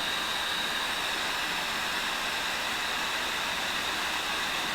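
Cincinnati tool and cutter grinder running with its diamond wheel spinning: a steady hiss with a constant high whine. The wheel is not yet cutting, with the carbide boring bar still being brought up to it.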